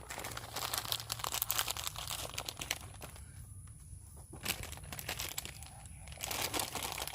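Crinkling, rustling handling noise made of dense small crackles, with a quieter spell about three to four and a half seconds in.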